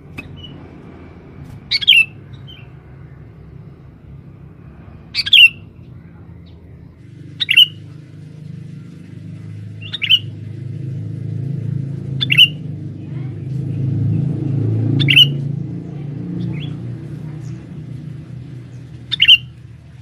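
Male sooty-headed bulbul (kutilang) giving short, sharp calls, about seven of them, one every two to three seconds. A low steady rumble runs underneath and swells in the middle.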